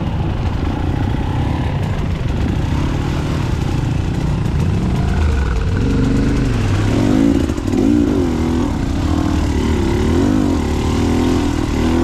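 Enduro motorcycle engine running under way, its pitch swinging up and down repeatedly in the second half as the throttle is worked.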